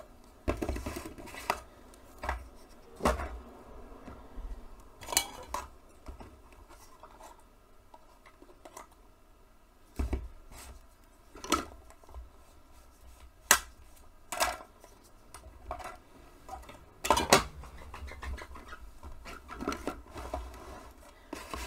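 Scattered clicks, knocks and scrapes of a jar of dark violet paint being handled on a worktable: opened, paint taken out onto a palette, and set down, with quiet gaps between the knocks.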